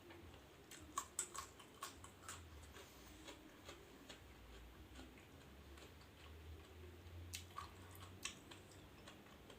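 A person chewing food: quiet mouth sounds with clusters of short, sharp clicks about a second in and again near the end.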